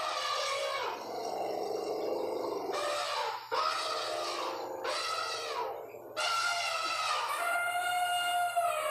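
Elephant trumpeting: a run of calls, each a second or two long, several falling in pitch. A lower-pitched call comes about a second in.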